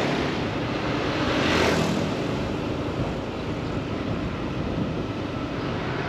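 Steady traffic noise, an even rushing hum, with one vehicle swelling past about a second and a half in.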